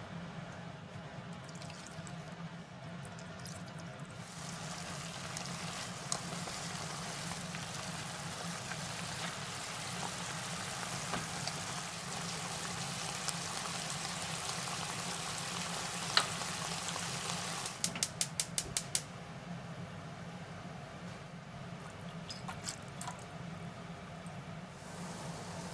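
Sliced beef and onion sizzling and simmering in a frying pan in added sake, sugar, mirin and kombu tsuyu, with occasional ticks from chopsticks stirring against the pan. About two-thirds of the way through comes a quick run of about eight sharp clicks, and after it the sizzle drops away to a quieter stretch.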